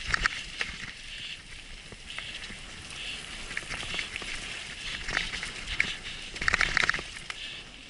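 Mountain bike rolling fast down a rocky, leaf-strewn dirt trail: tyres crunching over stones and leaves and the bike rattling, with clusters of sharp clicks and knocks, the busiest about five and again about six and a half seconds in.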